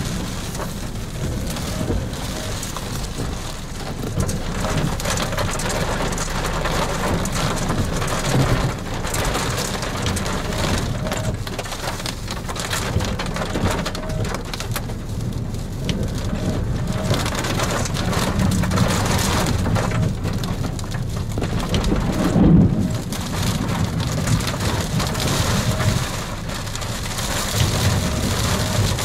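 Steady heavy rain and wind beating on a vehicle during a tornado-producing thunderstorm, with a louder low thump about twenty-two seconds in.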